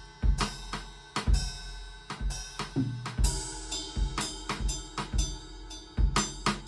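Improvised drum kit track: bass drum, snare and hi-hat in a steady beat, with a cymbal crash about three seconds in.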